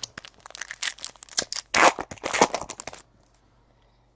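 A trading-card pack's foil wrapper being torn open and crinkled by hand: a quick, dense run of crackling rips that stops about three seconds in, followed by only a few faint ticks.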